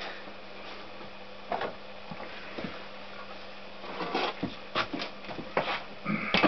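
Scattered light clicks and knocks of tools and metal parts being handled on a workbench, coming more often from about four seconds in, with the sharpest knock near the end. A faint steady low hum runs underneath.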